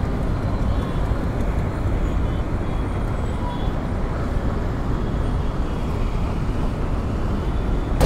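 Steady wind and road noise from a moving motorcycle.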